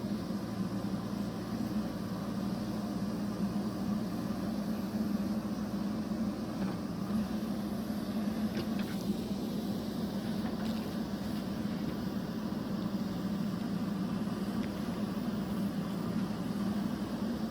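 Steady, even mechanical hum, low in pitch and unchanging, with a few faint ticks around the middle.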